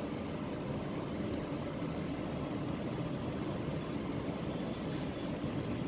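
Steady background hum and hiss with no distinct events.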